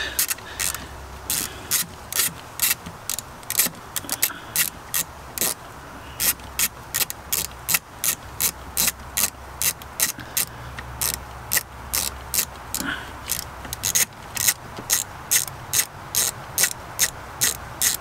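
Socket ratchet clicking in quick back-and-forth strokes, about three clicks a second with brief pauses, as it backs out a loosened throttle-body bolt.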